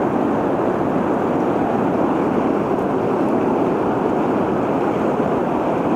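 Steady rush of fast-flowing river water, a constant noise that holds at one level throughout.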